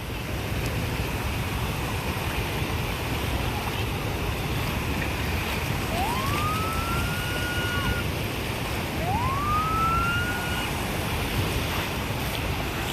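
Surf washing in steadily with wind on the microphone. Over it, a siren rises and holds in two separate wails, about six and nine seconds in.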